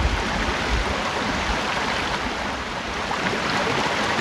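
Shallow creek water running over and around rocks: a steady, even rushing.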